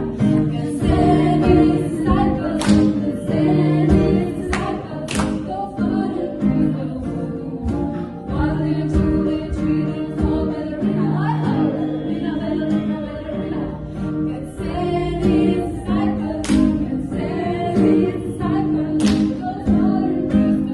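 A group of voices singing a Christian worship song together, sustained and continuous.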